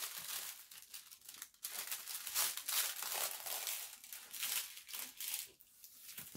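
Clear plastic packaging crinkling and the rolled diamond painting canvas with its release paper rustling as it is handled and unrolled by hand, in irregular bursts.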